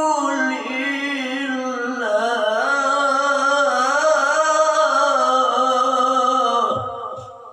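A male qari's voice holding one long ornamented note in melodic Quran recitation, the pitch wavering in small turns. It swells louder about two seconds in and fades out near the end.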